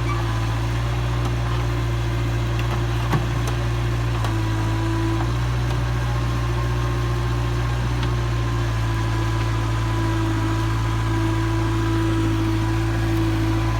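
A motor vehicle's engine idling steadily, with one faint click about three seconds in.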